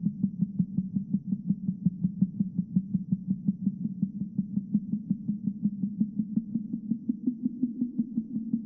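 A low, steady hum that pulses evenly several times a second.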